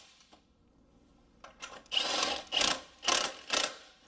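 Cordless impact gun run in four or five short bursts, starting about a second and a half in, as it drives down the mounting bolts of an A/C bypass pulley.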